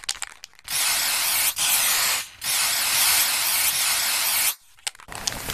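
Aerosol spray-paint can hissing in three bursts, the last and longest about two seconds, with a few sharp clicks just before the first burst and again after the last.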